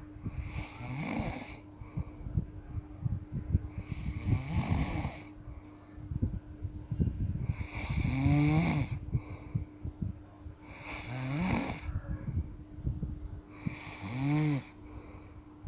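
A sleeping person snoring: five loud snores at a slow, regular pace, about three seconds apart.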